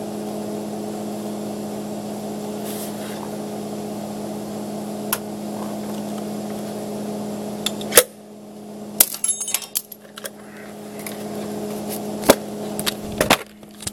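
Steady electrical hum of an arc welder that drops away abruptly with a sharp knock about eight seconds in. After that, scattered metallic clinks and taps as the metal parts of the harrow are handled.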